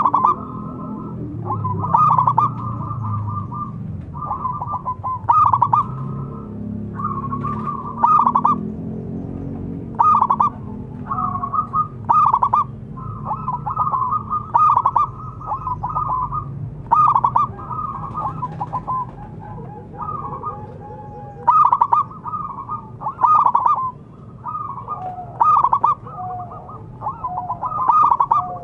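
Zebra doves (perkutut) calling over and over: rapid, stuttering coo phrases, a new one every second or two, often overlapping.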